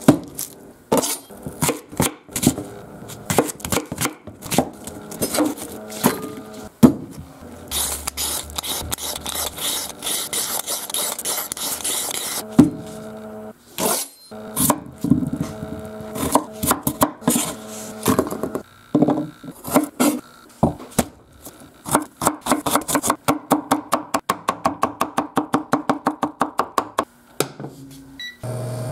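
Kitchen knife chopping onion on a cutting board: sharp, uneven knocks of the blade on the board, ending in a quick, even run of chops near the end.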